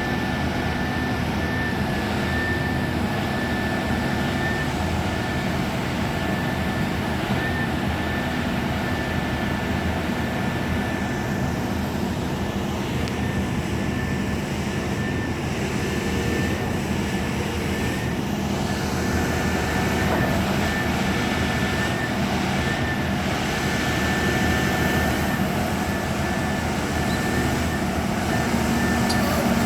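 Caterpillar excavator's diesel engine running steadily, with a thin steady whine over the engine drone.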